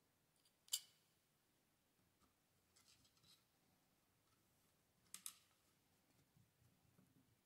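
Near silence with a few sharp clicks of small kit parts being handled on the bench: one about a second in, a faint rustle around three seconds, and a quick double click about five seconds in.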